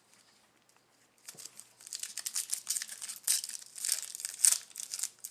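Plastic foil wrapper of a trading card pack crinkling and tearing as it is ripped open by hand, starting about a second in with a run of sharp crackles.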